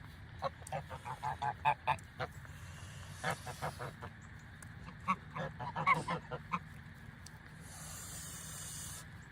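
Geese honking in quick runs of short calls with pauses between, then a brief hiss near the end.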